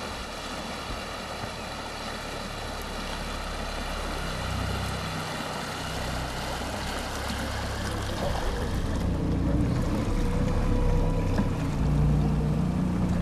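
Engine of a small Arvor cabin boat running as it approaches and comes alongside, a low steady hum growing louder.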